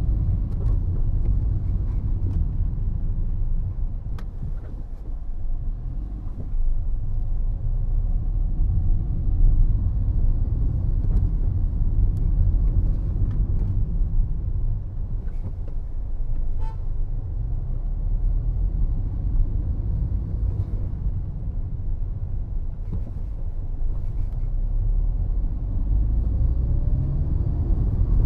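Car driving along a road, heard from inside the cabin: a steady low rumble of tyres and engine, with faint scattered clicks. A short car horn sounds once about halfway through.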